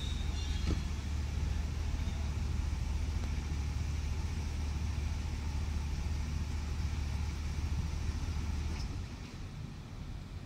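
Steady low engine rumble that drops away suddenly near the end.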